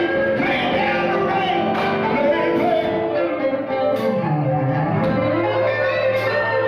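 Live church gospel band playing, with guitar to the fore and some singing in the mix; the bass dips low about four seconds in and then holds a steady low note.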